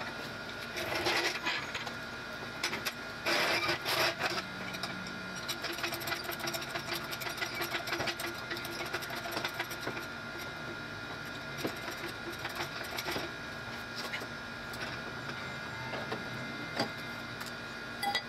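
Ratchet wrench on a long extension clicking in quick runs on the nut at the centre of a golf cart's front wheel hub. There are two louder bursts about one and three and a half seconds in, then steadier lighter clicking.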